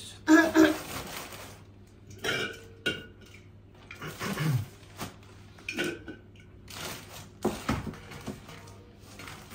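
A plastic shopping bag rustling, with cans and jars clinking and knocking together as food is packed into it inside a cardboard box. The sound comes in several short bursts.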